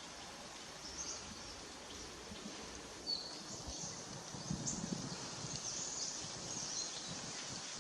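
Faint outdoor background noise with scattered short, high bird chirps. A brief low rumble comes about four to five seconds in.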